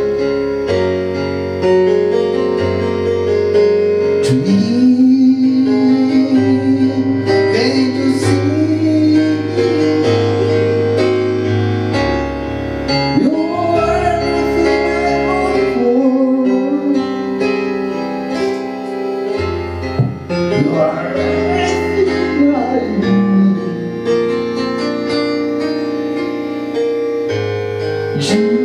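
A band playing live: a man singing a melody over electronic keyboard chords and drums.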